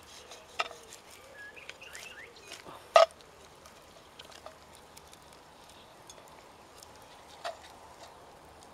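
A knife and wooden fork knocking and scraping against a cast-iron Dutch oven as roast lamb is cut and pulled apart in the pot: a few sharp clinks, the loudest about three seconds in.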